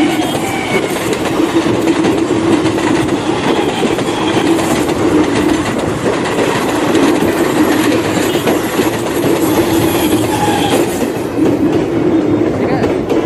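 Battery-powered toy train set running along plastic track, the locomotive's motor and wheels making a steady, loud, noisy rattle.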